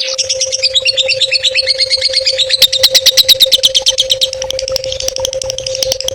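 Recorded songbird song: a fast chattering trill of repeated high notes, loudest near the middle at about ten notes a second, over a steady low hum.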